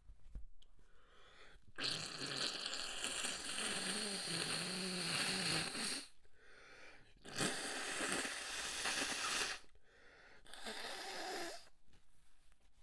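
A person blowing their nose three times: a long blow of about four seconds with a wavering honk in it, then a shorter blow and a brief last one.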